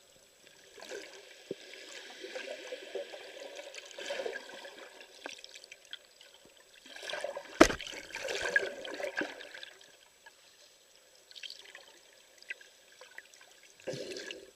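Water swirling and bubbling as heard underwater by a camera below the surface, coming in uneven swells with quieter gaps. One sharp knock stands out about halfway through.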